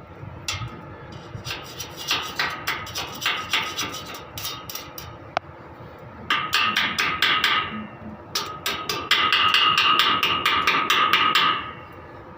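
Hammer striking square steel pipe in quick runs of blows, about five a second, the steel ringing after each strike. A single sharp crack comes midway, and the last run is the loudest and stops about a second before the end.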